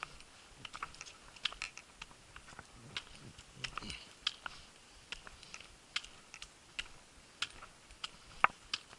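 Trekking pole tips and boots tapping and clicking irregularly on wooden trail steps during an uphill climb, with a sharper click near the end.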